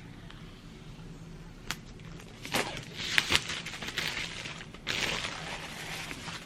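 Packaging being handled: a few sharp clicks and taps on the box, with short stretches of rustling and scraping about three and five seconds in.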